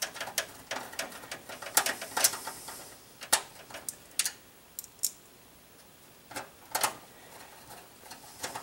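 Irregular clicks and taps of steel expansion-slot cover plates and a screwdriver against the computer case's rear slot brackets, as the blanking plates are fitted back in.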